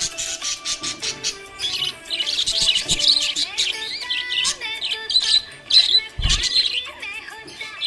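Small pet parrots chirping and warbling rapidly and continuously over background music, with a short low thump about six seconds in.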